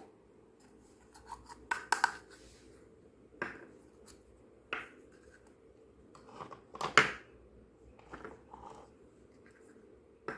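Small plastic miniature toy kitchen pieces being handled: scattered clicks, taps and scrapes, loudest about two seconds in and again about seven seconds in.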